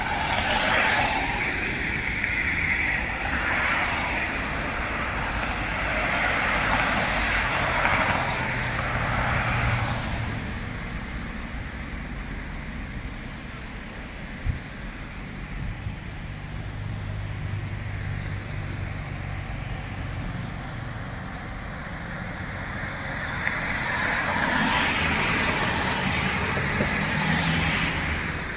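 City street traffic: cars passing, their tyre and engine noise swelling over the first ten seconds and again near the end, with a low engine hum in between.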